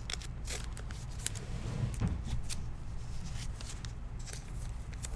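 Trading cards being handled and slid against one another as a pack is flipped through: a quick run of soft clicks and flicks.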